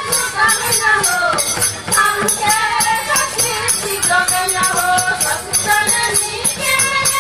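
Tharu Jhumra folk music: singing over hand drums keeping a fast, even beat.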